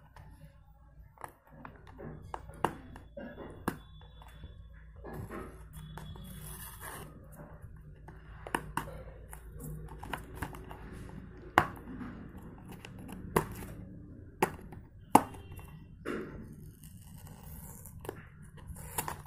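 Seal on a Cadbury Celebrations cardboard gift box being torn open by hand: scattered paper-and-card tearing and rustling, broken by sharp snaps and taps, over a steady low hum.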